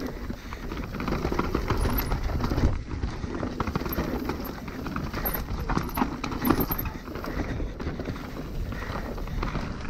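Mountain bike riding fast down a dirt singletrack: tyres rolling over the dirt and the bike rattling and knocking over bumps, with heavy wind rumble on the microphone.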